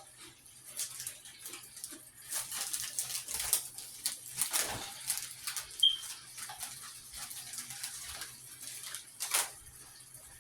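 Shrimp and onions sizzling in a frying pan, with irregular crackles over a low steady hum. Two short high squeaks, about six seconds in and at the very end.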